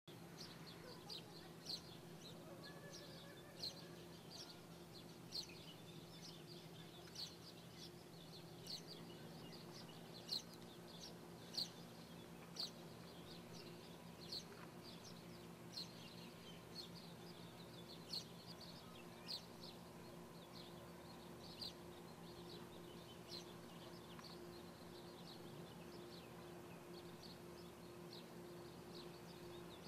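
A small bird chirping, short sharp high chirps about every one to two seconds that thin out near the end, over a faint steady low hum.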